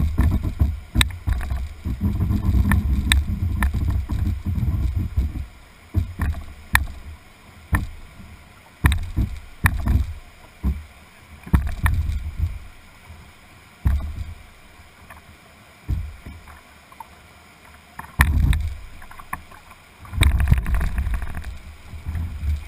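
Whitewater rapids rushing around a canoe. Irregular heavy thumps and sharp knocks on the hull come every second or so as the boat bobs and is pushed about in the current.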